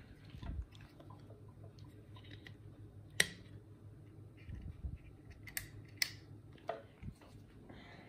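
SMC Hampton Bay Landmark ceiling fan with a low steady hum. Over it come a few sharp clicks and knocks, the loudest about three seconds in and more between five and seven seconds, as the fan is handled to switch it into reverse.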